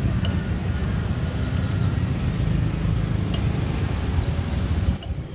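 Steady low rumble of street traffic, with a few faint metal clicks as a spatula works baked pukis cakes out of a cast-iron mold.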